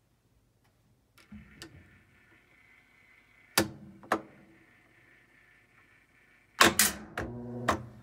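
Whirlpool WTW5000DW1 top-load washer's drive giving loud, sharp, ringing clicks while the drum brakes at the end of the spin cycle: two faint clicks, two loud ones around halfway, then a quick cluster of four near the end, over a faint steady whine. The clicks come from the splutch (drive cam) teeth riding over and slipping, which the owner cured by replacing the splutch and thinks may come from a failing inner shaft bearing in the gear case with about 1/8" of play.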